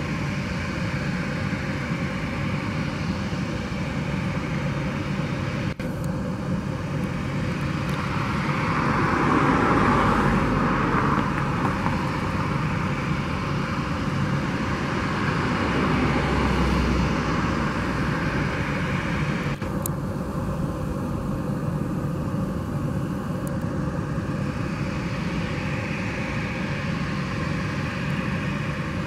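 Boeing 737-700's CFM56-7B turbofan engines running at taxi power, a steady jet hum with a whine, swelling louder about ten seconds in and again briefly a few seconds later.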